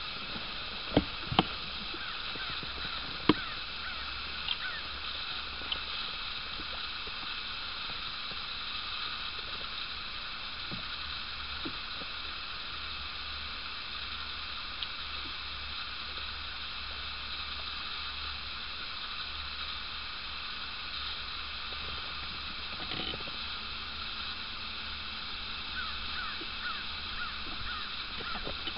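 Steady faint background hiss with a low hum underneath, and a few sharp clicks in the first few seconds.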